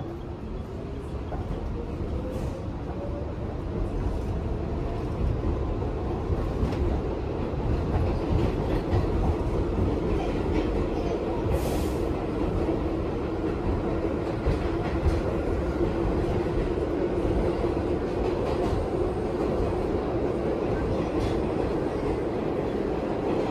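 New York City subway train heard from inside the car as it pulls out of a station: the motors whine, rising in pitch over the first few seconds, then hold a steady tone over the low rumble of the wheels. There are scattered rail clicks and a brief hiss near the middle.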